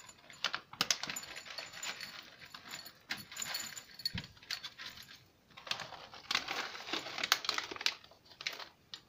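Pieces of Whiskas cat food rattling and clicking into a bowl as the plastic bag is shaken and crinkled, in irregular bursts with short pauses.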